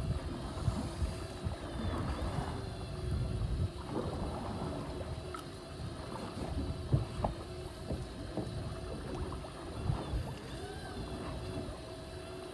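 Steady motor hum with wind buffeting and water sloshing against a boat's hull, with a few small knocks.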